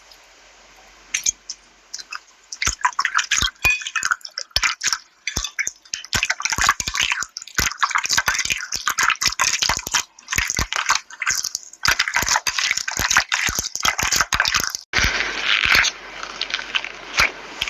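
Slime being pressed, poked and stretched by hand, making rapid, irregular wet clicks and pops. About fifteen seconds in, it gives way to a denser crackling.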